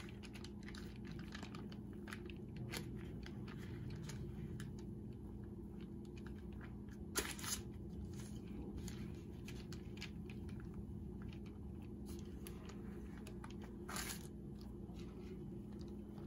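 Faint rustling and crinkling of parchment paper and soft dough as a stromboli is rolled up by hand, with scattered small clicks, the sharpest about seven seconds in. A low steady hum runs underneath.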